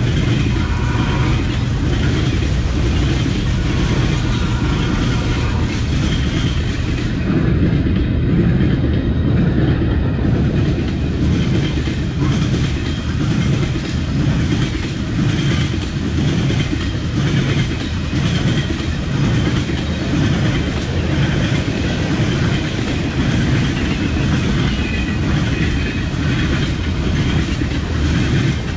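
A train rolling past at close range: a continuous heavy rumble of railcars with the clickety-clack of wheels over the rails.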